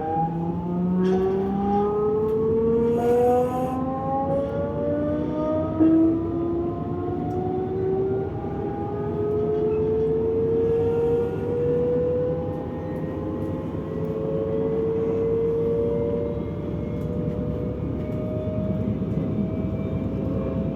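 DB class 425 electric multiple unit pulling away and accelerating: the traction drive whines in several tones that rise slowly in pitch as speed builds, over running rumble. This is the whine that earns the class its nickname "Quietschie".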